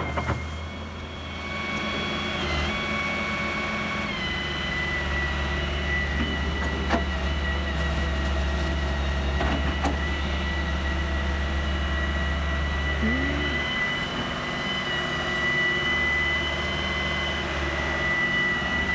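Diesel engine of heavy machinery running steadily under a high, steady whine, which steps down slightly in pitch about two and four seconds in. A few short knocks.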